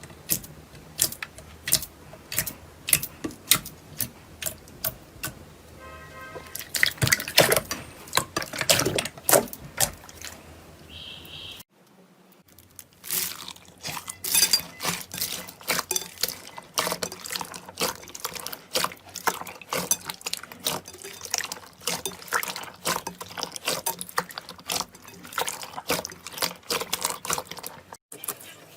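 Slime being squeezed and pressed by hand, making many wet, sticky pops and clicks. The sound breaks off about twelve seconds in and then another stretch of popping begins.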